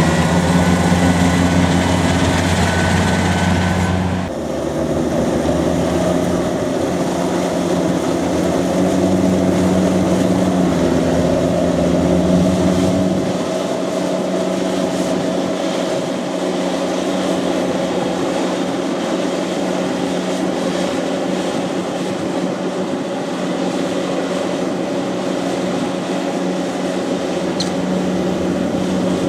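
Kubota rice combine harvester running steadily with a loud engine drone. The engine note shifts suddenly about four seconds in, and around thirteen seconds the deepest tones drop away, leaving a lighter, higher hum.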